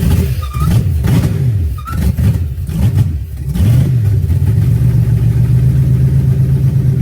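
Custom-built GM LS V8 engine running and being revved up and down several times, then holding a steady raised idle from about four seconds in. It is being run after rain soaked it, the owner suspecting a little water in the ignition.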